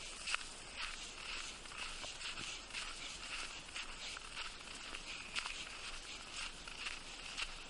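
Footsteps crunching through a thin layer of fresh snow at a steady walking pace, with a few sharper clicks.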